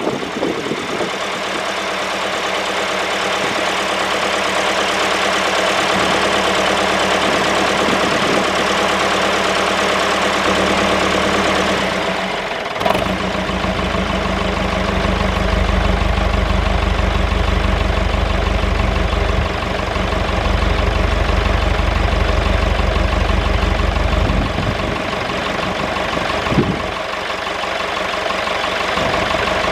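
David Brown 996 tractor's four-cylinder diesel engine idling steadily, freshly restarted after sitting unused for ten years. Its sound gets deeper and heavier about halfway through, easing back near the end.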